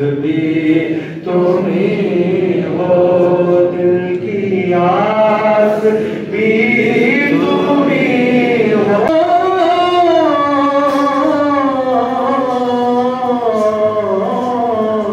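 Voices chanting a slow melody, long held notes gliding up and down, with a sudden break about nine seconds in.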